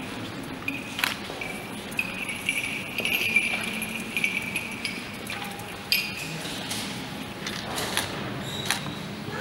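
Light metallic jingling and clinks, a few sharp ticks spread through, over a low murmur in the room.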